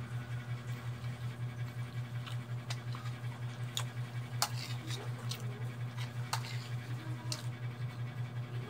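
Metal cutlery clinking and scraping against a ceramic bowl about ten times while noodles are eaten. Underneath is a steady low hum that pulses about five times a second.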